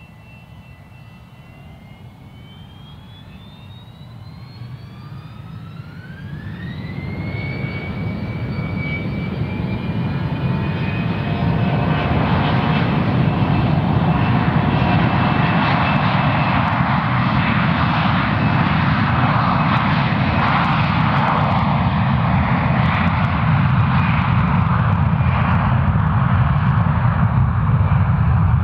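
Fokker 100's two Rolls-Royce Tay turbofans spooling up for takeoff: a whine that rises in pitch over the first several seconds, then a loud, steady roar that builds as the jet accelerates down the runway at takeoff thrust.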